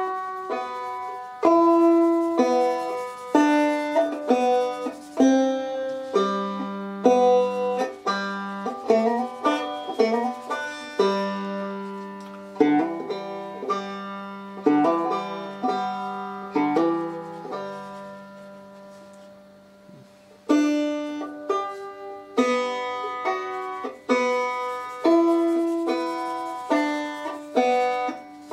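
Banjo picked note by note through a short scale exercise tune that works in slides and hammer-ons. The notes die away about two-thirds through, and the playing starts again after a short pause.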